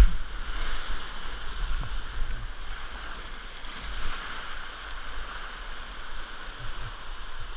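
Whitewater rapids rushing steadily around a kayak in a river in spate, with a low rumble of buffeting on the microphone.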